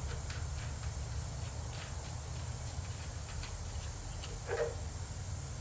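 Faint, scattered clicks of hand tools and small parts being handled as pieces come off a small engine, over a steady low hum.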